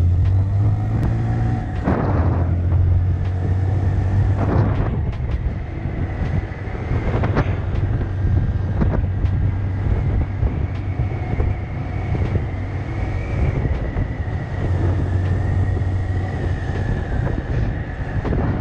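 Small motorbike engine running steadily while riding along a street, with a steady low hum and a faint high whine that rises a little and falls back in the second half. A few brief knocks come in the first half.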